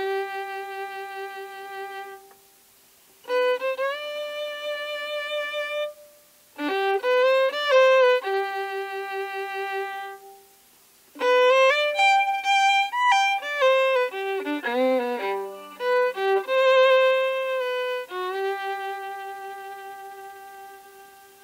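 Solo Irish fiddle playing a slow tune in phrases: quick ornamented runs that settle onto long held notes with vibrato, separated by brief pauses. The last long note fades out near the end.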